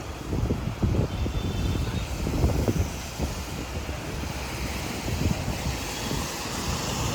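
Street traffic passing, with wind rumbling on the microphone.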